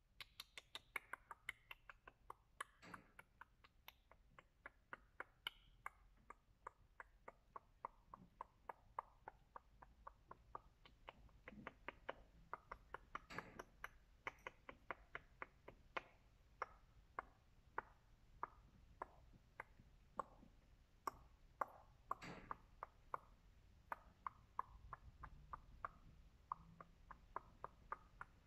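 A long, quick run of sharp, dry clicks made by a person, about three or four a second, with a few louder clicks along the way.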